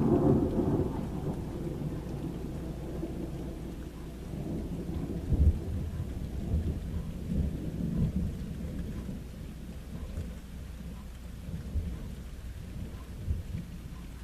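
Thunder rumbling during a thunderstorm, loudest right at the start, then rolling on low with a few swells, over steady rain.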